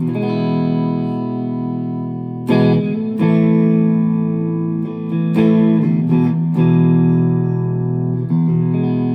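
Chapman ML1 Modern Standard electric guitar playing a run of chords, each struck and left to ring, about six in all.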